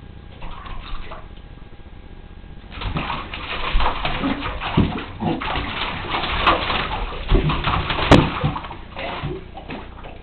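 Shallow bathwater sloshing and splashing in a bathtub as a pit bull puppy moves about and noses into it. It starts about three seconds in and goes on as a busy run of splashes.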